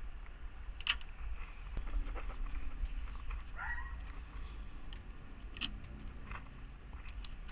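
Scattered light clicks and taps of hand tools and parts being worked on during a car radiator and fan removal, over a steady low rumble, with one short squeaky chirp about three and a half seconds in.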